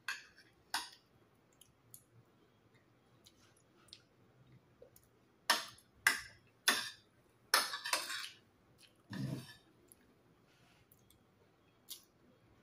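Metal spoon and fork clinking and scraping on a plate of rice during a meal: scattered short clinks, with a quick run of them about five to eight seconds in.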